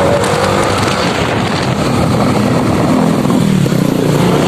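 Motor scooter engine running while riding, over a steady rush of wind noise; the engine pitch rises about two and a half seconds in and eases off again near the end.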